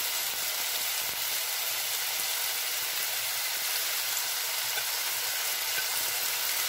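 Mixed vegetables (carrot, peas, peppers, onion) sizzling in hot oil in a pan, a steady hiss, as shredded cabbage is added on top.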